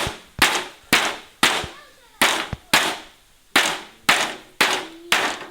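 A quick series of about ten sharp strikes, roughly two a second, each ringing briefly, like blows struck on wood or metal.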